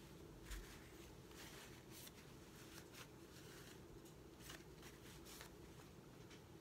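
Near silence: a faint steady room hum with soft, scattered rustles and light ticks from hands handling a paper towel, a paintbrush and wooden popsicle sticks while wiping on stain.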